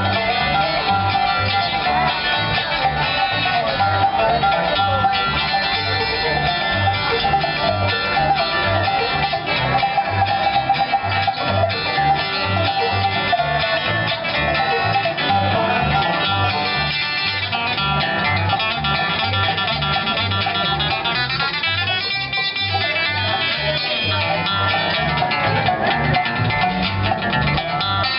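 Bluegrass band playing an instrumental passage: fast banjo and guitar picking over a steady, regular bass line.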